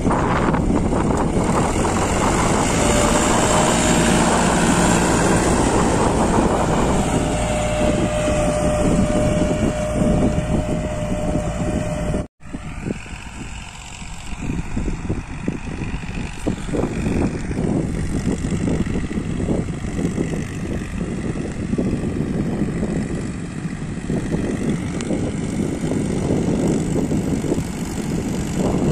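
Tractor diesel engines running steadily under load, pulling a cultivator through the soil. The sound drops out for an instant about twelve seconds in, then continues somewhat quieter as the tractors work farther off.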